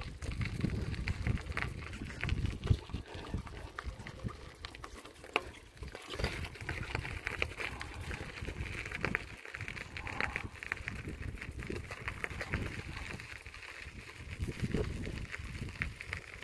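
Wind buffeting a phone's microphone, an uneven, gusty low rumble with small knocks, over a steady high chirring in the background that grows louder about six seconds in.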